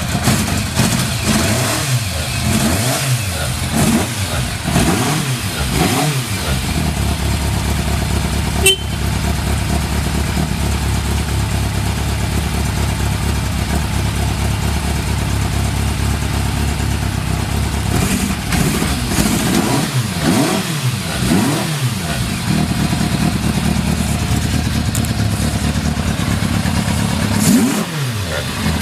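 Yamaha FZR1000 inline-four engine idling steadily just after a first-press start, with clusters of quick throttle blips in the first six seconds, again about 18 to 22 seconds in, and once near the end. The idle is stable and free of abnormal noise. There is one sharp click about nine seconds in.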